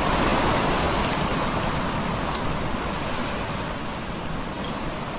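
Television static hiss with a low rumble beneath it. It starts abruptly and slowly fades.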